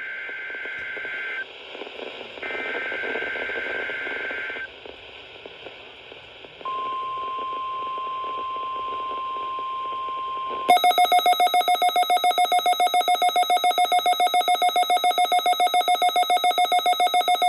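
NOAA Weather Radio weekly test alert as heard from a receiver: the end of the SAME digital header, two buzzy warbling data bursts, then a steady 1050 Hz warning alarm tone for about four seconds. After that comes a much louder rapid electronic beeping alarm, about six or seven beeps a second.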